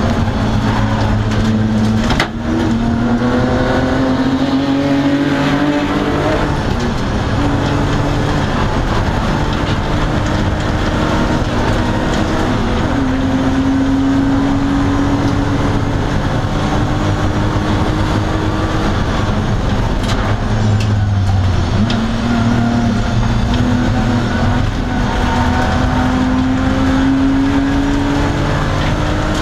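BMW E30 325's inline-six engine under hard acceleration on track, heard from inside the stripped, caged cabin. The pitch climbs steadily through each gear and drops sharply at the upshifts, about two, seven and thirteen seconds in. Around twenty-one seconds in it falls low for a moment, then pulls up again.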